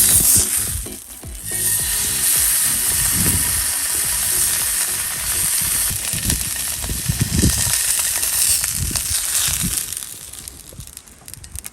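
Food sizzling hard in a hot pan, a dense steady hiss that dips for a moment about a second in and dies away near the end, with some low knocks underneath.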